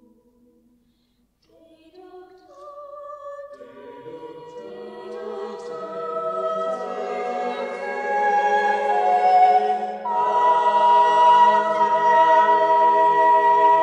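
School madrigal choir singing a five-part (SSATB) choral piece: after a brief silence, voices enter one after another and build into full, sustained chords, growing louder and loudest from about ten seconds in.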